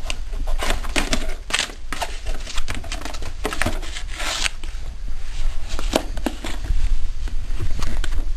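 A baby's hands crinkling and rustling a paper booklet and knocking a small cardboard box, in a run of short crackly bursts and clicks that is busiest in the first four and a half seconds and thins out after.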